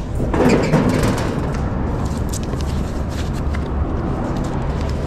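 Steady engine and road rumble of a box truck under way, heard inside the cab, with scattered small clicks and rattles.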